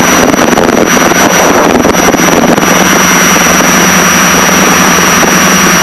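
Steady cabin noise of a Piper Seneca's twin piston engines and propellers, heard from inside the cockpit, with a steady low drone throughout.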